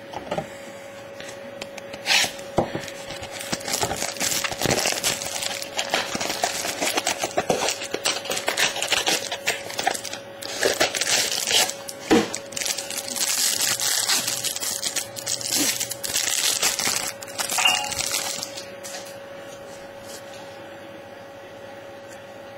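Trading card pack wrapper crinkling and tearing as the pack is opened, with cards rustling and clicking in the hands. The handling stops about four fifths of the way through, leaving a faint steady hum.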